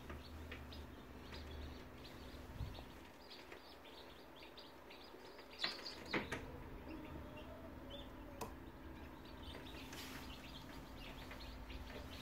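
Newly hatched chicks peeping, many short high chirps in quick succession, over a steady low hum. A few sharp clicks come near the middle.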